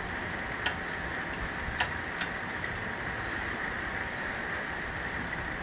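A few sharp metallic clicks from a wrench tightening a power steering hose fitting onto its bronze sealing washer, over a steady background hiss.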